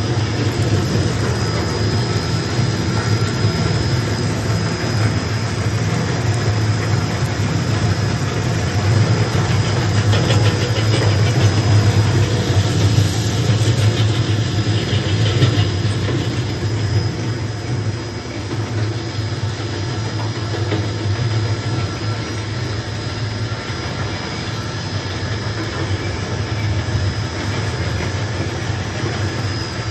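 Industrial shredder for nylon fishing net running steadily: a loud low motor-and-gearbox hum with a thin high whine above it. About halfway through there is a few seconds of rapid ticking as the cutter shafts work through the net.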